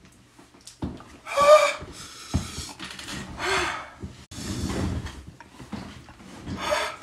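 A man panting, sniffing and gasping in short bursts, the reaction to the burn of extremely hot peanuts he has just eaten.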